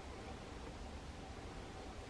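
Faint steady hiss with a low hum: room tone, with no distinct cutting or tape-handling sounds standing out.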